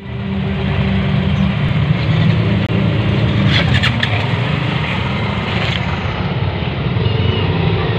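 Engines of a group of motor scooters, a Yamaha NMAX among them, running close by in a steady rumble, with a few sharp clicks about three and a half seconds in.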